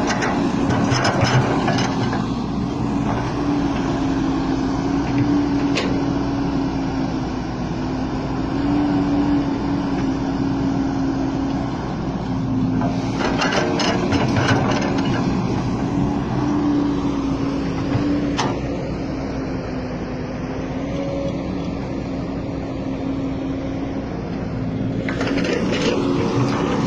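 Excavator's diesel engine running steadily, its hum wavering slightly in pitch, with short bursts of clattering about a second in, about halfway through and near the end.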